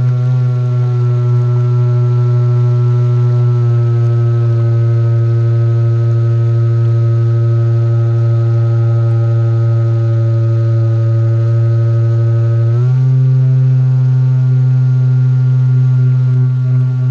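Gartt brushless motor and air propeller of an RC Swamp Dawg airboat running: a loud, steady droning hum. It dips slightly in pitch about four seconds in, then rises sharply about thirteen seconds in as the motor speeds up.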